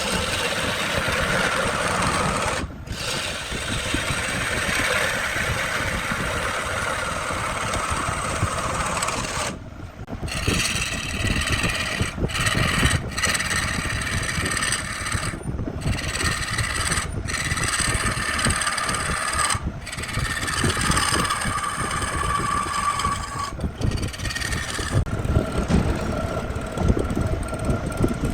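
Wood lathe running with a tool scraping and rubbing against the spinning wood-and-epoxy piece. The sound breaks off and restarts abruptly several times, and a steady high whine comes in near the end.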